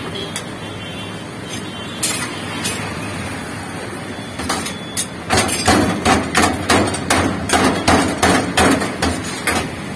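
Knife chopping shaved shawarma chicken on a metal tray beneath the vertical spit: a few single strikes, then from about five seconds in a fast, regular run of about four chops a second, over a steady background hiss.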